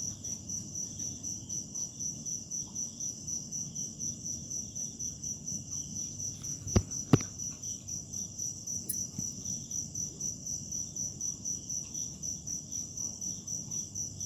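Crickets chirping: a steady high-pitched pulsing, several pulses a second. Two sharp clicks about half a second apart come roughly halfway through.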